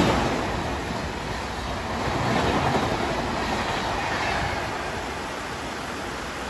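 Indian Railways express coaches passing at speed, wheels clattering over the rail joints, under the steady hiss of heavy rain. The train noise swells twice and dies away after the last coach passes, about four or five seconds in, leaving the downpour.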